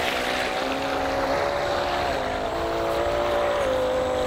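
Electric motor of a 3D-printed RC jet boat driving its jet pump: a steady whine over a rushing hiss, stepping in pitch a few times as the throttle moves, mostly settling lower toward the end. The motor is now spinning the right way after two of its wires were swapped.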